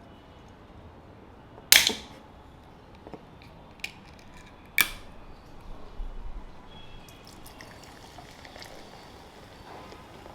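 Two sharp snaps about three seconds apart, the first the loudest, followed by a couple of seconds of light rustling and tapping.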